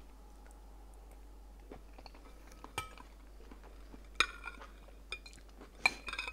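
Metal spoon clinking against a large glass bowl of curry as it stirs and scoops: several sharp chinks with a brief ring, the loudest about four seconds in.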